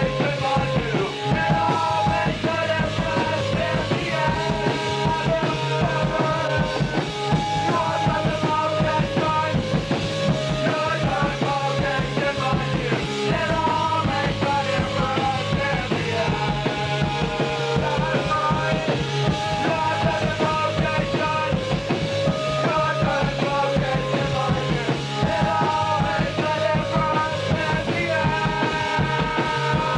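Punk rock band playing live: loud, dense guitar-driven music over a fast, steady drumbeat.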